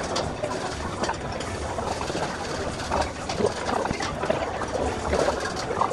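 Restaurant dining-room din, a steady background murmur, with light clicks of chopsticks and spoons against porcelain bowls every second or so.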